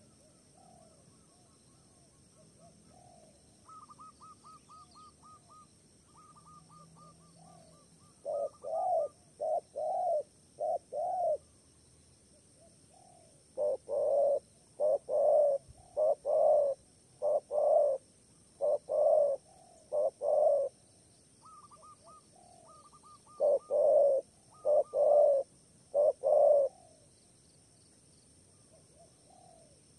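Spotted dove cooing: three bouts of loud, deep, repeated coos, the middle one the longest, with quicker, higher runs of short notes between them.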